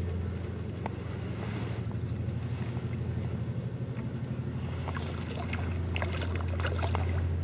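A hooked crucian carp splashes at the water's surface, a run of short sharp splashes and slaps from about five seconds in. Under it runs a steady low hum.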